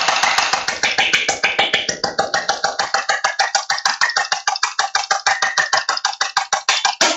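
ANSTOY G18 electric gel ball blaster firing full-auto in one long, even burst, the gearbox cycling through several shots a second, about 6 to 7 rounds per second on stock internals.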